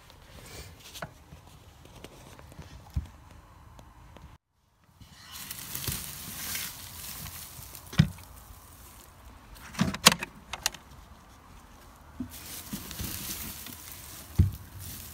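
Straw bedding rustling and crackling close to the microphone as it is pushed through, with a few sharp knocks against the wooden hutch, the loudest about 8 s, 10 s and 14 s in.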